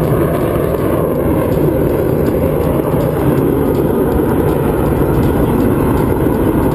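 Jet noise from a Belgian Air Force F-16 flying its display: a loud, steady rumble with a slight downward drift in pitch over the first few seconds.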